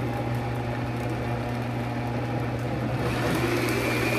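Countertop blender running steadily, its motor whirring as it purées oat milk, rolled oats and eggs into pancake batter. The whir turns brighter a little after three seconds in.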